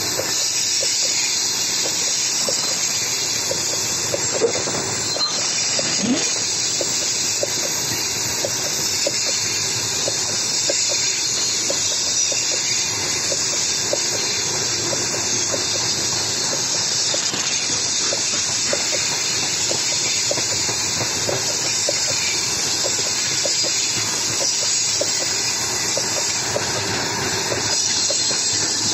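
Open freight wagons (gondola cars) of a long train rolling past close by: a steady rush of steel wheels on rail, with frequent small clicks and knocks from the wheels and couplings.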